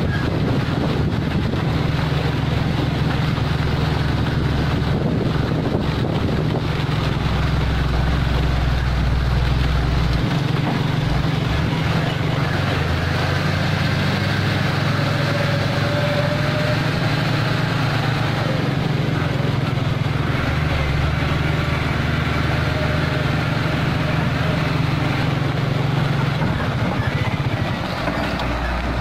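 Mitsubishi Fuso 220 PS self-loader truck's diesel engine running steadily as the truck drives slowly past, hauling an excavator. The engine note shifts about ten seconds in, and the sound drops a little near the end as the truck pulls away.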